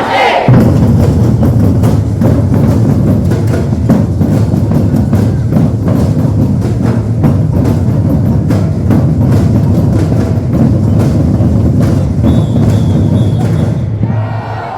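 Batucada percussion ensemble playing a steady, dense groove: deep bass drums under fast, crisp drum strokes. A high steady tone sounds for about a second and a half near the end.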